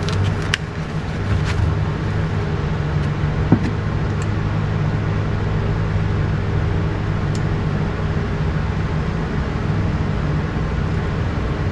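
A steady low mechanical hum, like a motor or engine running, with a few light clicks in the first few seconds.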